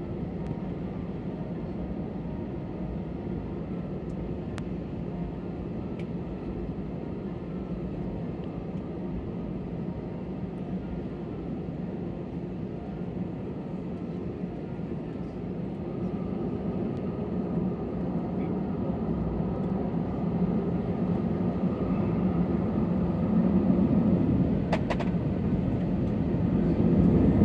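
Airbus A320 jet engines and airflow heard from inside the passenger cabin: a steady hum, growing steadily louder from about halfway through as the engines spool up for the take-off roll.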